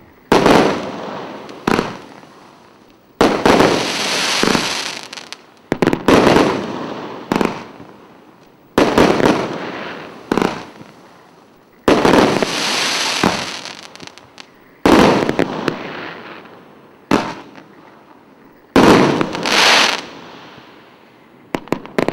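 Consumer firework cake with 25 and 30 mm tubes firing shot after shot. There is a sharp bang every one to three seconds, and each is followed by a fizzing tail that fades over a second or two. A few small pops come near the end as the cake finishes.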